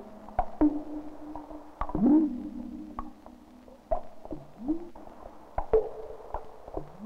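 Title soundtrack of low held tones that slide upward in pitch now and then, with higher tones above and scattered sharp clicks.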